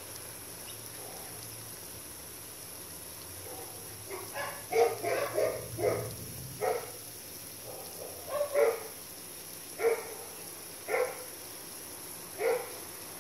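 An animal giving short, sharp calls: a quick run of them about four seconds in, then single calls roughly every second and a half.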